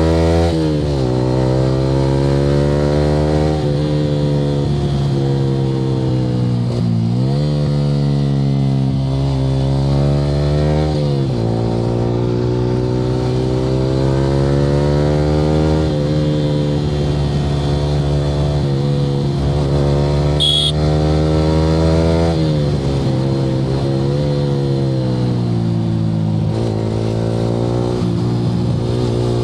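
Yamaha R15 V3's single-cylinder engine through an aftermarket Akrapovic R9 slip-on exhaust under way, the pitch climbing through the revs and dropping sharply at each upshift, about five times.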